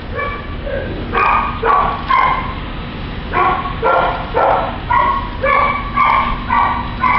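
Dogs barking repeatedly: runs of short, fairly high barks and yips, about two a second, with brief pauses between the runs.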